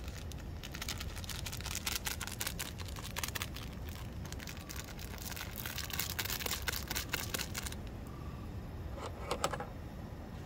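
Small plastic sachet crinkling and tearing as the chili flakes are opened and shaken into the pan, a dense crackle that stops abruptly about eight seconds in, followed by a few light clicks. Beneath it the gas camping stove's burner keeps up a steady low noise.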